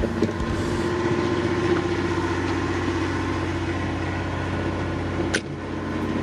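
Sailboat's inboard engine running steadily under way, a constant even drone. There is a single sharp click about five seconds in.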